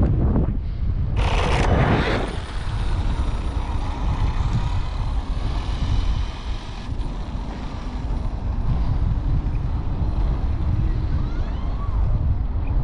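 Strong wind buffeting the microphone in a steady low roar. About a second in comes a brief, much louder rushing burst.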